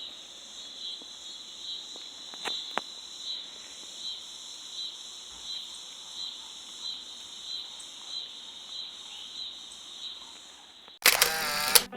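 Crickets chirping in a steady high chorus that pulses about three times every two seconds. Near the end it cuts abruptly to loud music.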